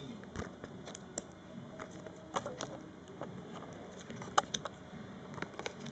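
Panini Adrenalyn XL trading cards being shuffled and flicked through by hand: faint, irregular card clicks and rustles, with one sharper snap a little past four seconds in.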